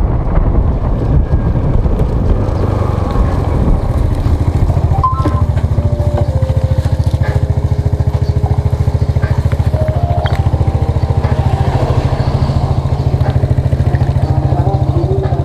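Motorcycle engine running, first while riding along a road, then settling into a steady, evenly pulsing idle from about four seconds in.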